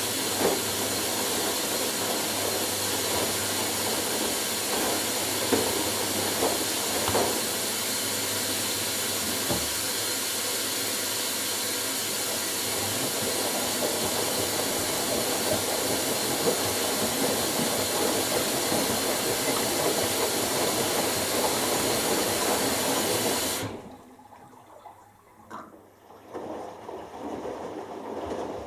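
Front-loading washing machine filling with water for its final rinse: a steady rushing hiss of water entering through the inlet valve, which shuts off abruptly near the end, leaving a fainter, uneven drum tumbling.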